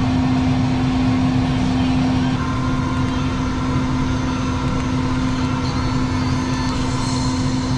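Steady machinery drone inside a parked business jet's cockpit: a constant mid-pitched hum over a low rumble, with a fainter higher tone joining about two seconds in.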